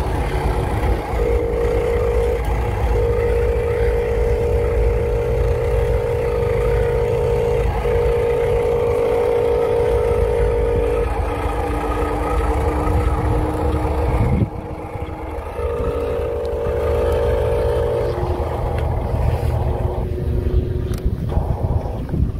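Huina radio-controlled dump truck running: a steady pitched hum that cuts in and out in stretches of several seconds over a low rumble, with a slowly rising lower whine midway. The rumble drops away suddenly about two-thirds through.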